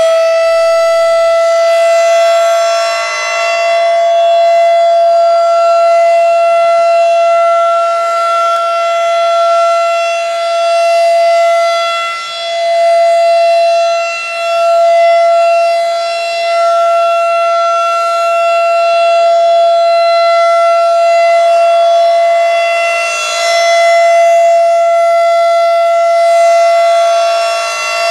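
Federal Signal 2001 outdoor tornado warning siren sounding a steady, unbroken tone for its routine test. The pitch holds level while the loudness dips briefly now and then as the rotating head sweeps away and back.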